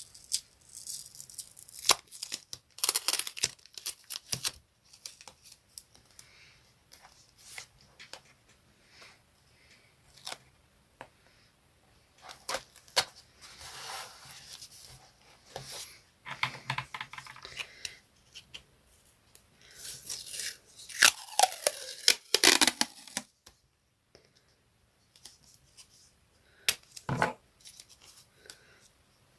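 Colouring on paper: scratchy strokes of a colouring tool in irregular bursts, with sharp clicks in between.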